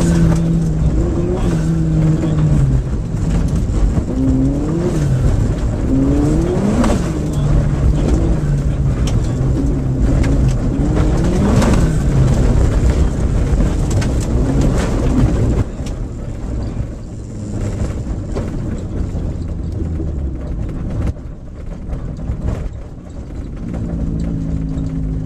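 VW Golf rally car's engine heard from inside the cabin, revving up and down through gear changes on a gravel stage, with stones and grit clicking against the underside. About 15 seconds in the sound drops suddenly to a quieter, sparser level, and a steadier engine note returns near the end.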